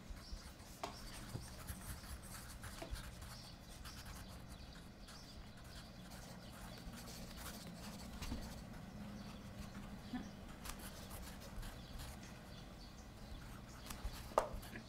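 Pencils scratching on paper as several people write quickly, with a low steady room hum underneath.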